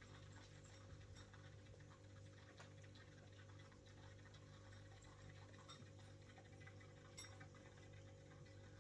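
Near silence: faint, irregular ticks of a sphynx cat licking its paw and washing its face, over a steady low electrical hum.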